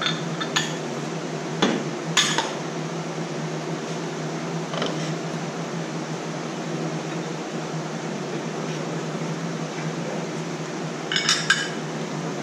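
Metal bait-injection molds clinking and knocking as they are handled and set down. There are a few scattered clinks early and a quick cluster of clinks near the end, over a steady background hum.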